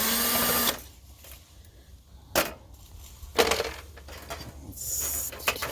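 A power drill/driver whirs briefly at the start while taking apart a copier, followed by a few scattered knocks and clatters of parts being handled.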